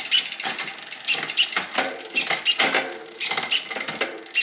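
SRAM GX Eagle AXS wireless rear derailleur shifting the chain down a Shimano 12-speed cassette while the drivetrain turns in a stand: a run of clicks, about two or three a second, as the chain drops from cog to cog, each with a short high whir from the derailleur's motor.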